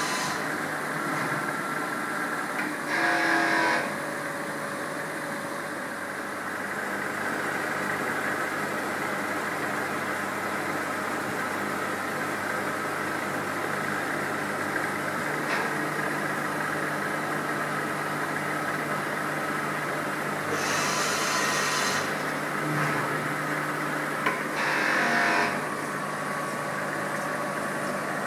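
Powered-up Maho MH 700 C CNC milling machine humming steadily at idle, its spindle not cutting. Three brief louder bursts of noise come about 3, 21 and 25 seconds in.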